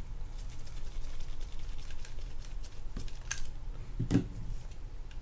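Light, irregular clicking and ticking of a mini screwdriver working a small screw out of a Penn Fierce III spinning reel, with the metal parts of the reel being handled. A single dull knock about four seconds in.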